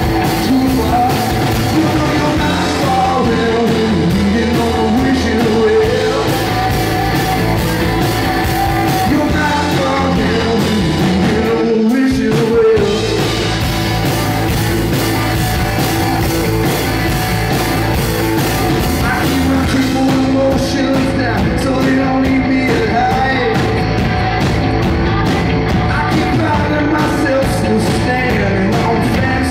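Live rock band playing: electric guitars, bass guitar and drums, with the low end dropping out for a moment about twelve seconds in.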